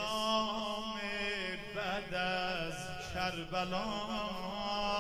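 A man chanting a Shia devotional eulogy (maddahi) into a microphone, drawing out long, wavering held notes.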